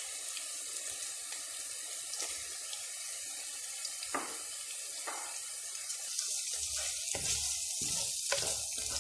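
Chopped onions sizzling in hot oil in a wok, a steady hiss, with a couple of light knocks in the middle. From about six seconds in, a plastic slotted spoon scrapes and knocks against the pan as it stirs.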